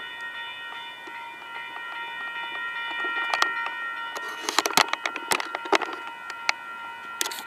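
Railroad grade-crossing bell ringing steadily, its strokes about twice a second. A cluster of sharp knocks and clicks comes in about halfway through, louder than the bell.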